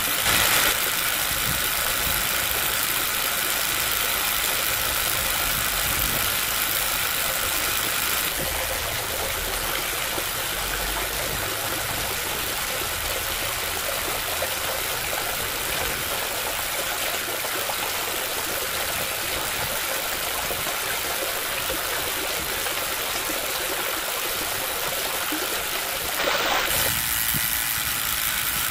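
Small brushed DC motor running steadily, working a toy hand pump's handle through a crank arm, with pumped water running into a plastic tank. It is a little quieter from about eight seconds in and briefly louder near the end.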